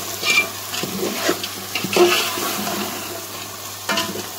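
A metal spoon stirring boiled chickpeas, chopped tomatoes and green chillies frying in oil in a pot, with wet sizzling and a few scrapes and knocks of the spoon against the pot. The stirring eases after about two seconds, leaving the mixture sizzling, with one more knock near the end.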